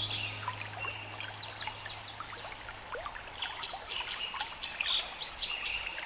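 Many small birds chirping over a steady trickle of running water, from a nature-sounds recording. A low held music note fades out about a second in.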